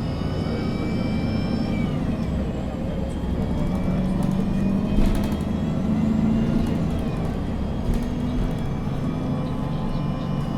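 Inside a MAN NG 313 CNG articulated natural-gas bus on the move: a steady low engine hum and road noise, with a high whine that falls in pitch during the first two seconds. A few sharp clicks or rattles come about halfway through and again later.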